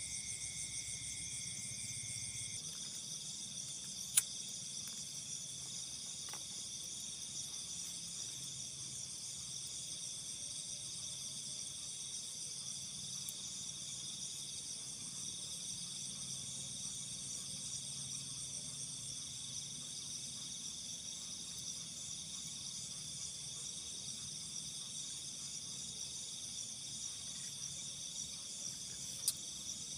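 Night chorus of crickets and other insects: several high, steady trilling layers, one lower trill dropping out about two seconds in. A sharp click sounds about four seconds in and another near the end.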